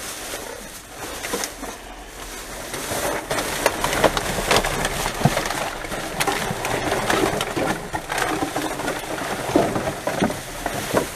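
Plastic rubbish bags rustling and crinkling as a gloved hand pulls at and rummages through them, with scattered clicks and knocks from the rubbish inside shifting.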